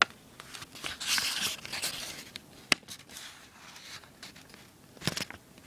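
A sheet of paper rustling and sliding on a table as it is folded and creased by hand, with one sharp tap near the middle.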